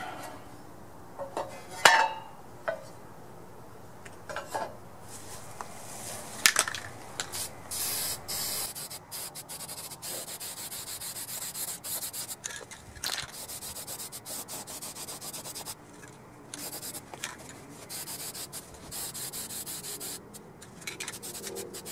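A few light clanks as sheet-metal panels are turned over, then, from about seven seconds in, an aerosol can of Rust-Oleum Rust Reformer hissing as it sprays primer onto the bare side of the panels, in long passes broken by short pauses.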